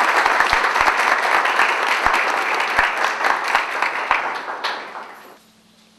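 Audience applauding, a dense run of handclaps that thins out and dies away about five seconds in.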